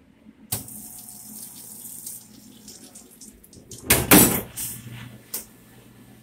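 Water running and splashing in a commercial dishwasher whose tank is foaming over with suds, with a louder burst of noise about four seconds in and a sharp click shortly after.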